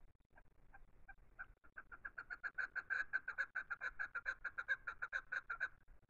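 Chukar partridge calling: a series of clucking notes that begins as a few scattered notes, quickens into a rapid, louder run about two seconds in, and stops shortly before the end.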